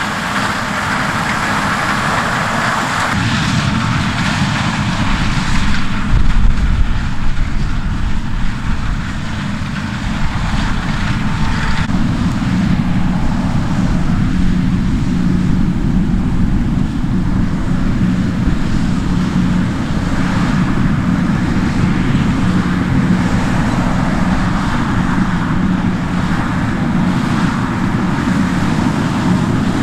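Heavy diesel harvest machinery running steadily under load. The sound shifts about three seconds in and again about twelve seconds in, after which a steady engine hum carries on.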